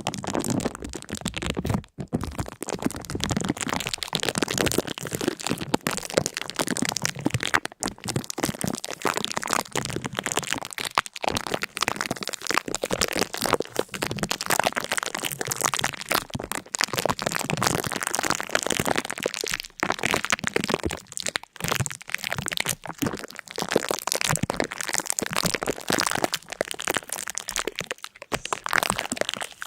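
Continuous dense crackling and crunching: many sharp cracks in quick succession without a break.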